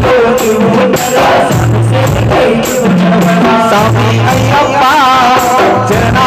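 Live devotional song: a man sings a wavering melody into a microphone, amplified, over repeated low bass notes and a steady drum beat.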